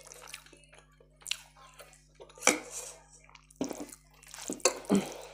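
Close-miked wet eating sounds: chewing and mouth smacks mixed with the squish of fingers working soft cooked greens into rice, in scattered sharp clicks and smacks with the loudest ones about two and a half seconds in and near the end.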